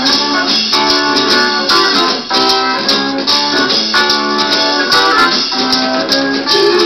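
Heavy psychedelic rock playing from a vinyl LP on a Bang & Olufsen Beogram TX-2 turntable, with a steady beat.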